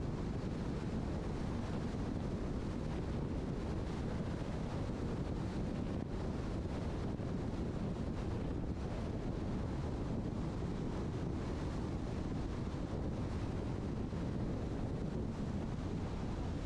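Steady road and wind noise of a car driving at highway speed: an even, low rumble with no changes.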